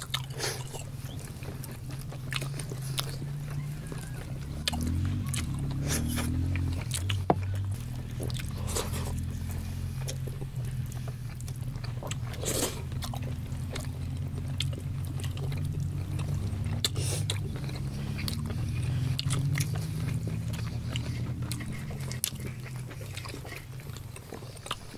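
Close-up eating sounds: men chewing and biting boiled organ meat, with scattered clicks and scrapes of knives cutting on the plates. A low steady drone runs underneath.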